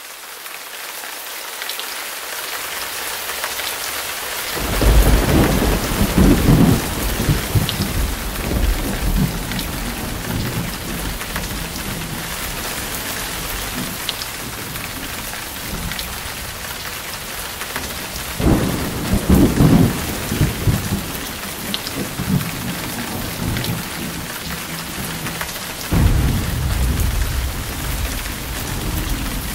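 Heavy rain falling steadily in a thunderstorm, fading in over the first few seconds. Three rolls of thunder rumble low beneath it: about five seconds in, near the middle, and near the end.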